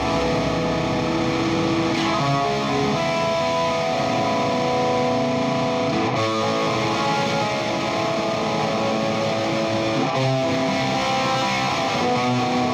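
Background music: a guitar-led rock track holding sustained chords that change every few seconds.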